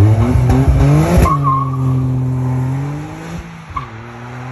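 A car engine revving hard in quick rising pulls. About a second in there is a sharp click with a brief squeal, then the engine settles into a steady note that slowly sinks in pitch.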